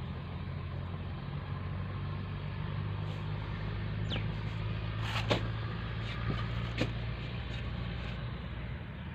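An engine running steadily with a low, even hum, with two or three sharp knocks or clicks about five and seven seconds in.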